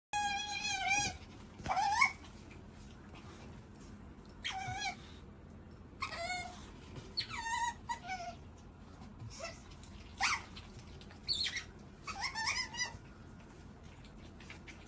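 Pet otter squeaking: about a dozen high-pitched calls in irregular runs. The first is a longer steady squeak of about a second, and several others glide upward. These are hungry begging calls for food.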